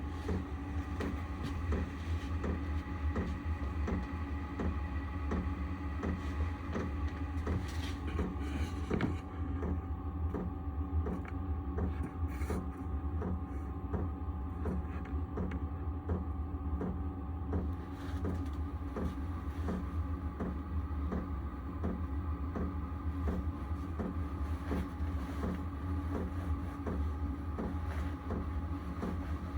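Hcalory diesel air heater running: a steady low hum from its blower and burner, with a few steady whining tones, and its fuel dosing pump ticking evenly about twice a second.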